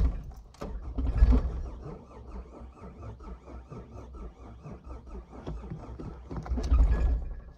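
A Ford Probe's engine being cranked on the starter without firing, turning over in an even repeating rhythm, with louder surges about a second in and near the end. The engine has spun a bearing and locked up after being run with wood preservative in it.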